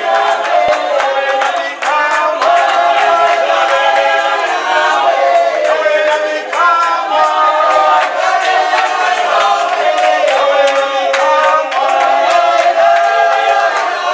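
A group of women singing together in chorus, a praise song over a steady beat of about three strokes a second.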